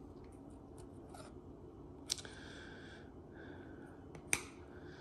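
Trading cards being handled and shuffled: soft card-on-card sliding, with two sharp snaps about two seconds in and near the end, over a faint steady room hum.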